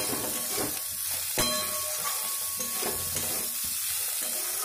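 Chopped spiny gourd pieces sizzling steadily as they fry in hot oil in a steel kadhai while being stirred, with a sharp clink about a second and a half in.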